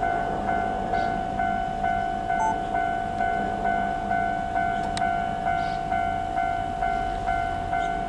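Japanese level crossing alarm ringing steadily at about two strikes a second: the warning of an approaching train.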